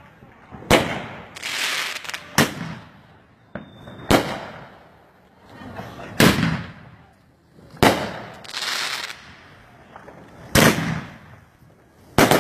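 Consumer aerial fireworks bursting overhead at close range: about seven sharp bangs, one every second and a half to two seconds, some followed by crackling.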